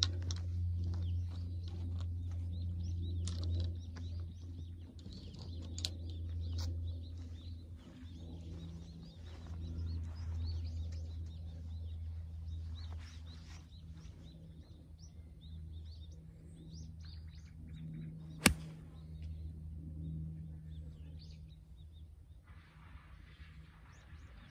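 Small birds chirping on and off over a low steady rumble. About three-quarters of the way through comes one sharp crack: a pitching wedge striking a golf ball on a shot hit slightly fat, the club catching the ground first.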